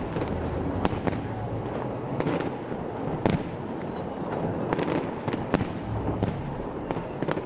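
Fireworks going off: irregular sharp bangs and cracks, about one a second, over a continuous rumble of further distant bursts.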